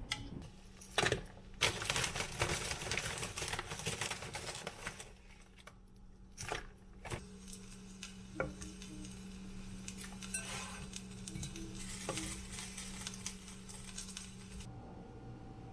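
Chopsticks scraping and clicking against a hot pan and a ceramic plate while sizzling stir-fried vegetables are tipped out. About five seconds in it changes to a pot of broth bubbling at a gentle simmer, with a steady low hum underneath.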